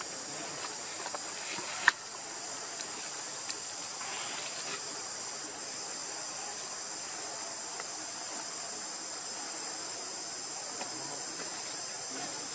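Steady, high-pitched insect chorus, a continuous shrill chirring of crickets or cicadas, with one sharp click about two seconds in.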